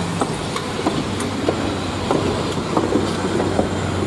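Passenger coaches rolling past on jointed track, a steady rumble of steel wheels on rail with irregular clicks and knocks as the wheels cross the rail joints.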